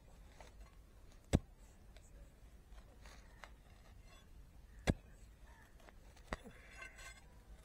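A digging bar striking hard, stony soil: three sharp knocks, about a second and a half in, near five seconds and again a second and a half later.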